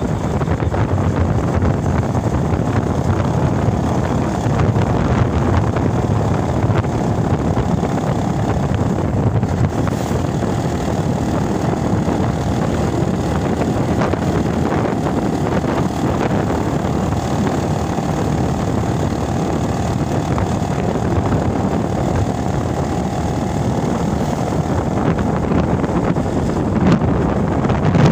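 Wind rushing over the microphone on a moving motorcycle, with the engine running steadily underneath.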